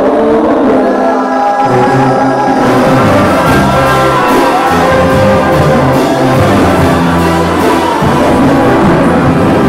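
Sinaloan banda brass band playing live and loud: trumpets, trombones and clarinets in unison lines, with the bass and rhythm coming in about a second and a half in.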